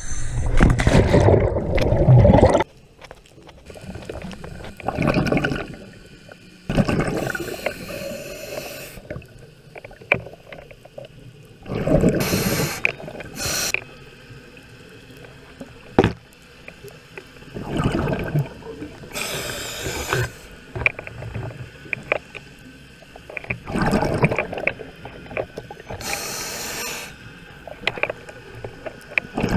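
Scuba diver going into the water with a loud splash, then breathing through a regulator underwater: a hiss on each inhale and a burst of exhaust bubbles on each exhale, about every five or six seconds.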